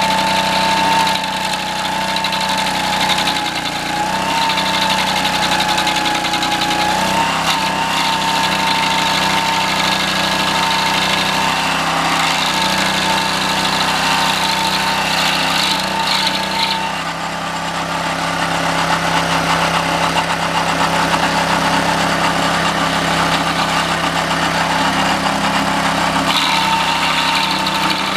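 Homemade stump grinder's 6.5 hp Honda single-cylinder engine running steadily, driving the cutting wheel through a 6:1 gear reduction. A high whine over the engine drops out about two-thirds of the way through and returns near the end.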